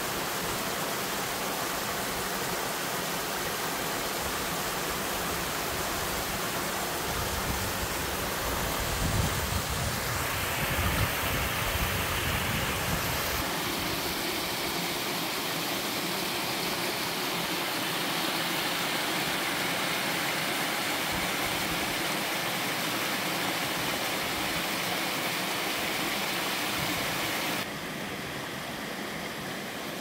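Mountain stream water rushing steadily over a two-tiered sliding cascade on bare bedrock slabs, an even hiss of falling water. A low rumble swells briefly in the middle, and near the end the rushing drops a little quieter.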